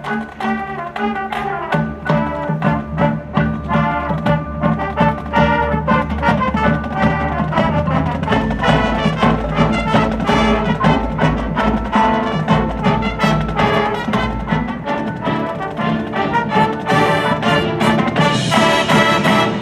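High school marching band playing its field show: brass section over percussion and front ensemble. A deep bass line swells in about halfway through.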